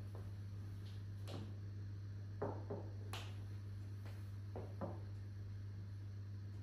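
Light knocks and taps of tableware being set down on a wooden table: woven coasters and a small bowl, about half a dozen short scattered clicks. A steady low hum runs underneath.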